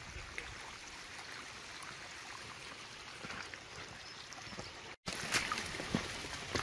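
Steady hiss of rain. About five seconds in it drops out for an instant and comes back louder, with sharp taps scattered through it.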